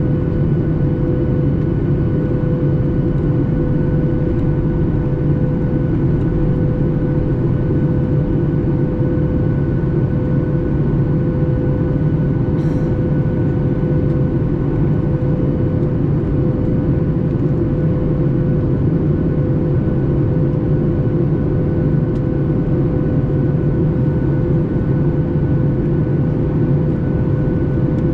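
Steady cabin noise inside a Boeing 737 MAX 8 in flight: the even rush of air and engine drone from its CFM LEAP-1B turbofans, with a constant hum at a fixed pitch. A faint click is heard about halfway through.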